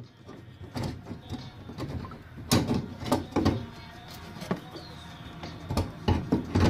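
Irregular metallic clinks and knocks of a fuel pump hanger assembly and hand tools being handled and seated in a car's fuel tank opening, with a faint steady hum underneath.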